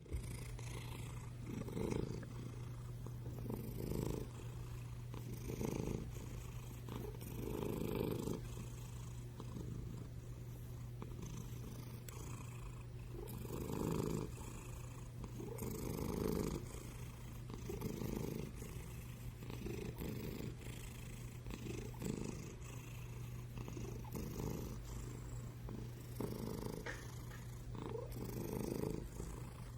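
A black-and-white tuxedo cat purring loudly and without a break. The purr swells on each breath, about every two seconds.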